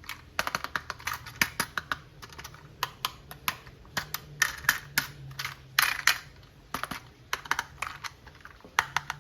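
Irregular light clicks and taps, several a second, of small toys or toy parts being handled and knocked together.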